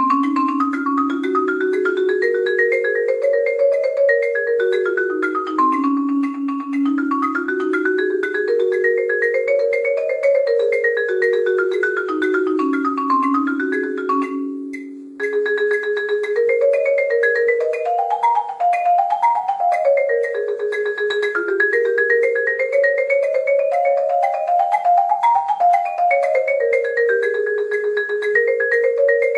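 Yamaha marimba played with mallets: a steady stream of quick, even notes running up and down in scale-like patterns in two parts at once, with a brief break about halfway through.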